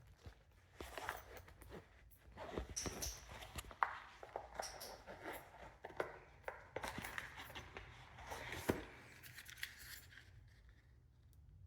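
Handling noises: irregular clicks, taps and rustling as a handheld voice recorder is taken out and set up, dying away near the end.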